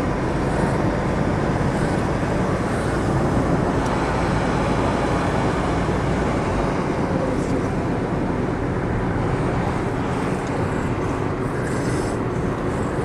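Steady road noise from inside a car moving at speed: tyres and engine.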